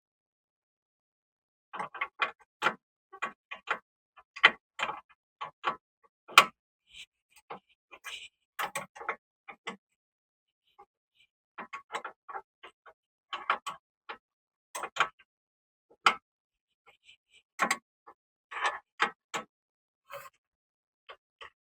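Irregular metallic clicks and knocks of hand tools at work on the car, some single and some in quick runs, with short pauses between.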